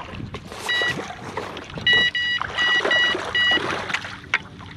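Water splashing and rough handling noise as a hooked carp is brought into a landing net. About six short electronic beeps sound in quick succession in the first part of the clip.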